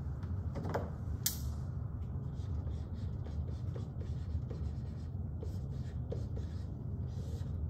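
Dry-erase marker writing on a whiteboard: a run of short, faint strokes and ticks as a word is written, with a couple of sharper clicks about a second in, over a steady low room hum.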